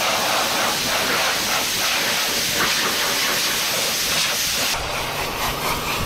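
Compressed air hissing steadily from a blow-gun nozzle as it blasts caked dust out of a large cylindrical engine air filter.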